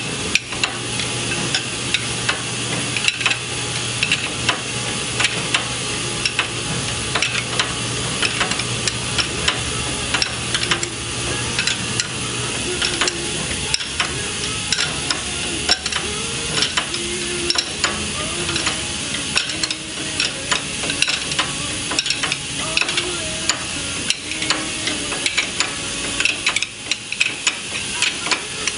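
Wrench turning the nut on a bearing-puller tool's threaded rod, with many small metal clicks and scrapes over a steady hiss, as the needle bearing is pulled out of a Toyota 8-inch reverse clamshell differential carrier. A low hum stops about halfway through.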